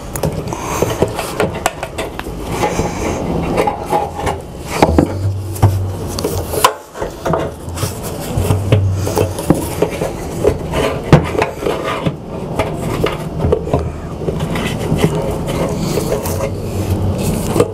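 Hands working parts inside a motorcycle fuel tank's filler opening: a busy run of rubbing, scraping and small clicks and knocks.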